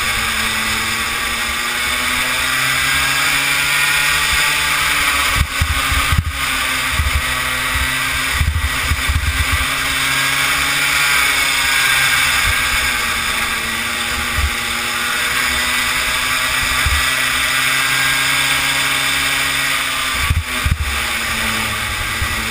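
Kid kart's small engine running at racing speed, heard from the onboard camera, its pitch dropping and climbing again several times over a steady rush of wind and tyre noise. A few short knocks and rattles about six, nine and twenty-one seconds in.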